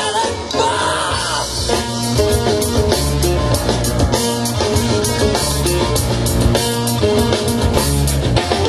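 Rock band music playing an instrumental passage, with a steady drum-kit beat, bass and guitar.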